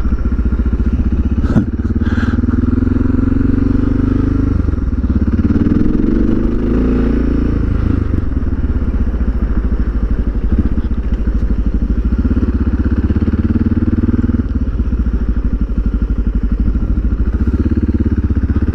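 Suzuki DR650's single-cylinder four-stroke engine breathing through an aftermarket FMF pipe and silencer, running under way on the dirt. The engine note rises as the bike accelerates about four seconds in, then settles back. A couple of knocks come about two seconds in.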